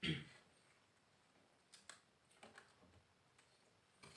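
Near silence with a few faint clicks and rustles of a hand handling a TV's flexi cable and its small connector, after a brief louder noise at the very start.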